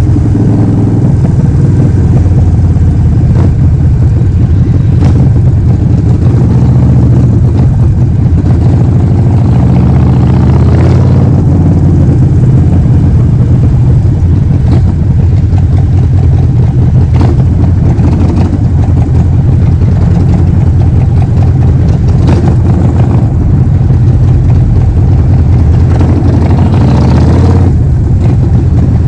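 Harley-Davidson Forty-Eight XL1200X's 1200 cc V-twin running through a Vance & Hines full exhaust system under way, its note stepping up and down several times.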